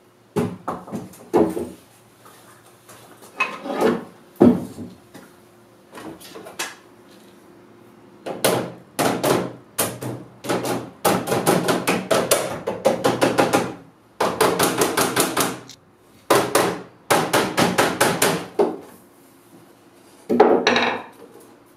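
Hammer striking the wooden frame of an old bookcase, knocking its parts loose. A few scattered wooden knocks come first, then quick runs of blows at several a second, with a last short burst near the end.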